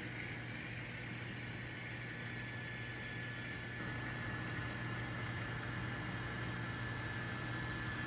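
Model diesel locomotive's electric motor and gear drive running steadily with a thin high whine as it backs along the track, a little louder from about halfway through.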